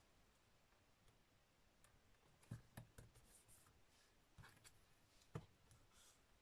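Near silence with a few faint taps and rustles of card stock being handled and pressed down on a work mat.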